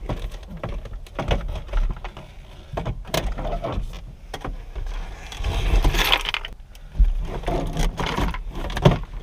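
Plastic trim of a 2004 Chevy Cavalier's center console being pried and pulled loose by hand: irregular clicks, knocks and rattles, with a longer scrape about six seconds in.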